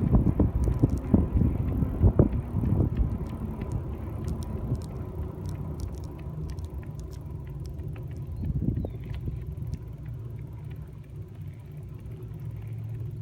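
Bicycle ride heard from a phone mounted on the bike: rumbling tyre and road noise with frequent small knocks and rattles. Busiest and loudest in the first few seconds, then steadier.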